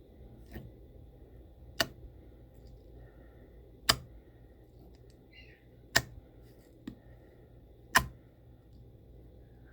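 Slime being pressed and squished by hand, giving four sharp pops about two seconds apart, with a couple of fainter clicks between them.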